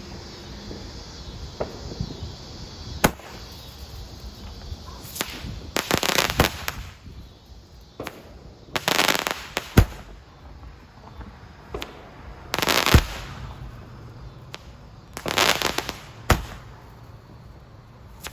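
Fireworks going off: a series of sharp single bangs and bursts of rapid crackling, spaced a few seconds apart.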